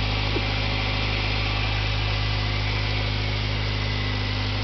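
1991 Acura Integra's 1.8-litre DOHC four-cylinder engine idling steadily and evenly, heard from close over the open engine bay. It is running smoothly, a healthy engine by the owner's account.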